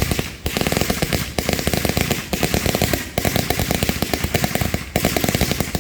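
Fireworks going off in a rapid, dense string of small bangs and crackles, in runs of about a second with brief breaks, stopping suddenly near the end.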